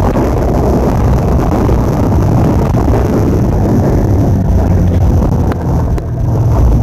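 Vehicle in motion: a steady low rumble with wind buffeting the microphone.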